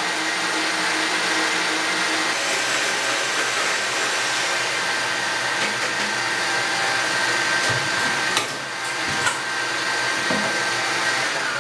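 Electric mixers running steadily with a thin motor whine: a stand mixer whipping Italian meringue as it cools, then a handheld mixer beating egg yolks with sugar. A few clicks come near the end, and the motor sound stops just before it.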